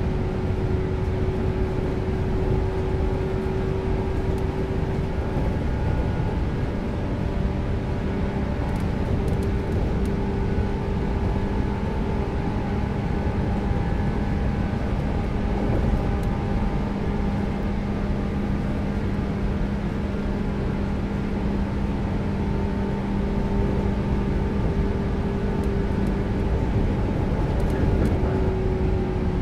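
Running noise inside the motor car of a JR West 115 series electric train, KuMoHa 115-1513: its MT54 DC traction motors hum at a steady pitch over the rumble of the wheels on the rails as the train travels at an even speed.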